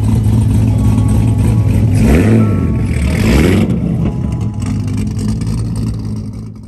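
A Chevrolet Camaro's engine running as the car drives past, swelling in a rev from about two to three and a half seconds in, then cutting off suddenly near the end.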